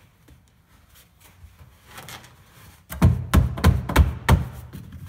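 A quick run of about six hand thumps, about three seconds in, as the glued foam pillar is pressed and knocked into place inside a plastic kayak hull, after some faint rubbing of hands on foam.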